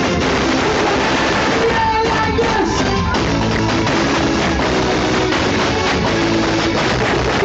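Loud live band music played through a stage sound system, heard from on the stage. Held melodic notes come in about two seconds in and again near the end.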